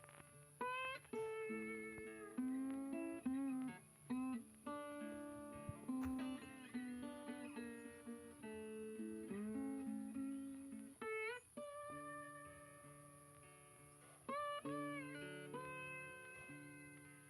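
Background music: plucked guitar playing a melody with bending, sliding notes, over a steady low hum.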